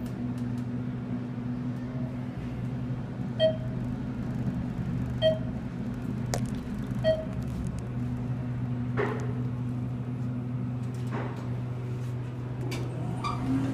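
Thyssenkrupp passenger elevator cab in motion with a steady low hum. Three short electronic beeps sound about two seconds apart, the cab's signal for each floor passed.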